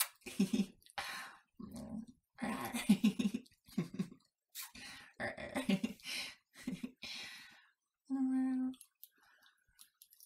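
A man's voice making a string of short playful nonverbal sounds, with a steady held hum about eight seconds in, as he acts a kitten nipping at fingers.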